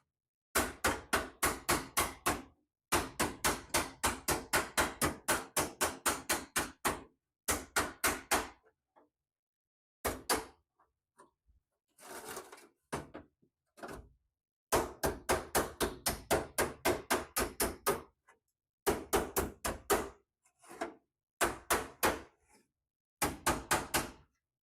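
Runs of quick, evenly spaced hammer blows on sheet steel, about five or six a second with short pauses between runs. The hammering straightens the edge of a replacement inner fender panel on a 1968 Volkswagen Beetle.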